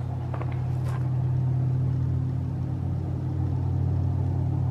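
A steady low rumble with no speech over it, and a few faint knocks in the first second.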